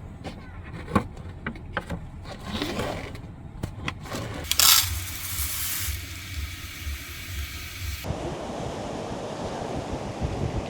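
Scattered knocks and clicks and a brief loud rush of noise, then, from about eight seconds in, steady sea surf with wind buffeting the microphone.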